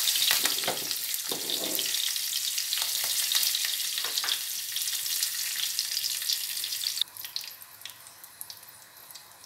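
Cumin seeds and curry leaves sizzling and crackling in hot oil in a nonstick pan, with frequent sharp pops: a tadka of whole spices blooming in the oil. About seven seconds in, the sizzle drops suddenly to a much quieter hiss with occasional pops.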